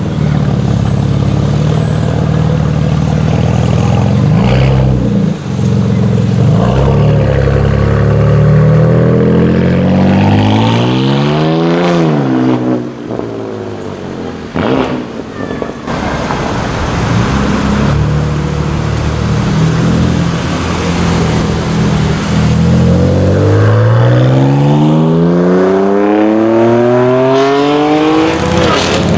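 BMW M4's twin-turbo straight-six running at low revs, then accelerating hard twice, the engine note climbing steeply each time. The first pull comes about ten seconds in and cuts off sharply; the second runs through the last six seconds.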